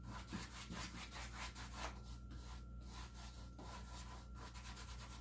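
Paintbrush scrubbing black paint across a canvas: faint, scratchy back-and-forth strokes, several a second.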